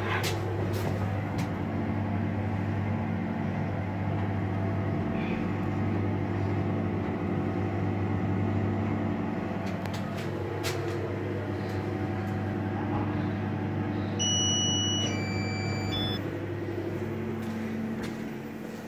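Dźwig Serwis passenger lift car travelling down with a steady hum from its drive. About 14 seconds in, a short run of electronic beeps at different pitches sounds as it arrives, and the running noise eases off near the end as the car stops.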